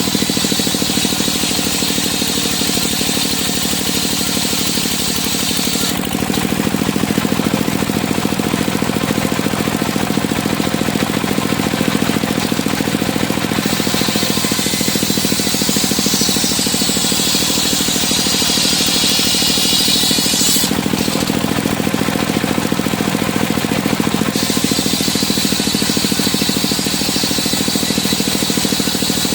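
A circular sawmill's engine runs steadily throughout, and a high-pitched whine from the circular saw blade cutting wood comes and goes three times: for the first six seconds or so, again in the middle, ending abruptly, and again near the end.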